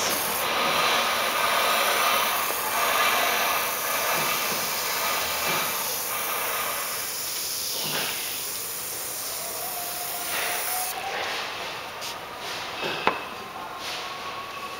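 Aerosol can of foam cleaner spraying with a steady hiss that stops abruptly about eleven seconds in. A single sharp knock follows near the end.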